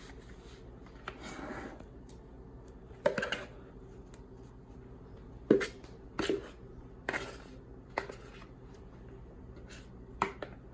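Kitchenware handled while mixing bread dough: a few scattered knocks and scrapes against a mixing bowl, the loudest about three and five and a half seconds in.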